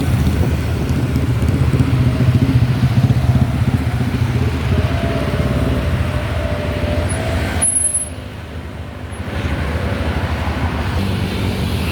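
Road traffic: a steady low engine rumble of passing vehicles, dropping briefly in level about eight seconds in.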